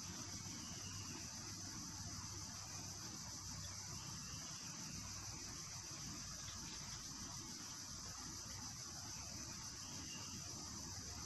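Steady, unbroken high-pitched drone of an insect chorus, with a low rumble beneath it.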